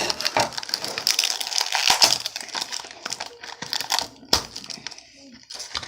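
Plastic packaging of a Ferrero Rocher chocolate pack being torn and crinkled by hand as it is worked open, with a sharp snap a little past four seconds in.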